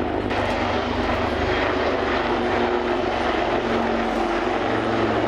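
Royal Navy AW159 Wildcat helicopters in display flight: steady rotor and turbine engine noise with a constant tone through it.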